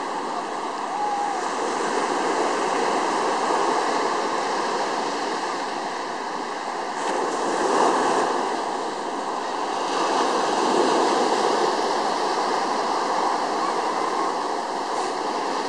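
Sea surf breaking and washing up onto a sandy beach: a steady rushing of waves that swells louder about eight seconds in and again a couple of seconds later.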